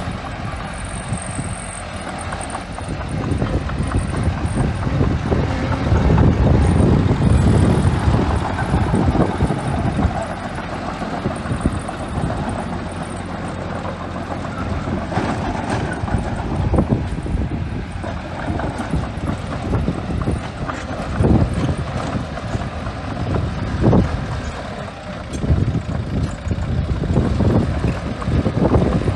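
Small bulldozer's diesel engine working under load as it pushes and spreads sand, growing louder about six seconds in and again near the end, with scattered knocks.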